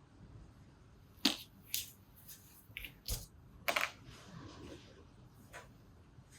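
A handful of sharp clicks and light metallic knocks, scattered irregularly, as small two-stroke carburettor parts and tools are handled and set down during disassembly.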